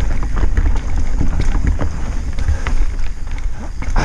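Wind buffeting a helmet-mounted camera's microphone as a mountain bike descends a rough trail: a steady low rumble with frequent knocks and rattles from the bike over the ground.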